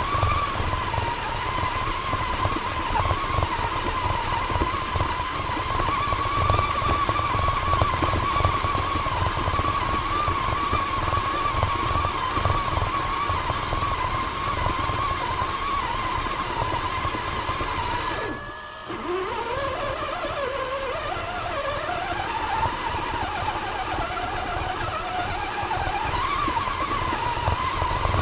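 Axial Honcho RC rock crawler's brushed electric motor and gears whining steadily as it drives over a gravel trail, with the tyres crackling over the stones. About two-thirds through the motor cuts out for a moment, then winds back up in pitch as the throttle comes back on, all heard close from a camera mounted on the truck.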